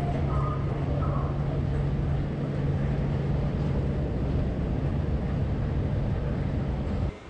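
Escalator running, a steady low mechanical hum with rumble underneath, cutting off abruptly just before the end.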